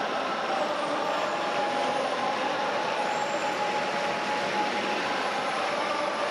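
Steady din of a large ballpark crowd.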